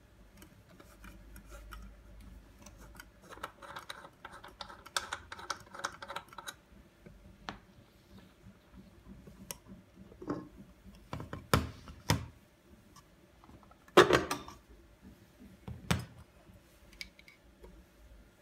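Hands taking apart the plastic rear housing of a Free Paws PD02 pet grooming dryer: light clicks and a rasping stretch as the plastic knob is unscrewed, then several sharp plastic knocks and clatters as the cover is pulled off and parts are set down on a hard surface, the loudest about two thirds of the way through.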